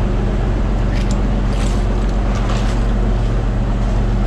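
Fishing trawler's engine drones steadily at sea, with a few brief clatters from the catch being handled on deck.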